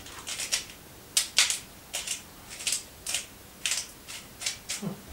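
Hand-twisted salt mill grinding salt: a quick string of short, gritty crunches, about two a second.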